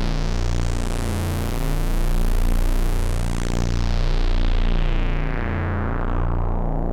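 Analog synthesizer drone from three detuned oscillators, their harmonics beating against each other, through a voltage-controlled filter and amplifier. The filter sweeps open to a bright, buzzy tone in the middle and closes back down to a darker tone near the end.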